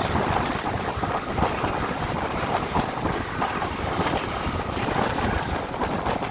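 Passenger train running at speed, heard from a coach window seat: a steady rush of wind over the microphone and the running noise of the coach on the track.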